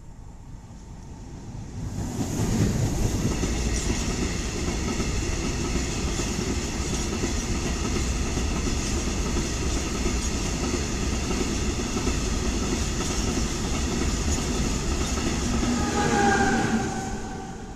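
Freight train passing close at speed: the Vossloh G2000 diesel locomotive goes by about two seconds in, followed by a long string of hopper wagons with a steady rush of wheel and rail noise. Near the end the trailing E652 electric locomotive passes with a brief hum of several tones, and the sound then fades.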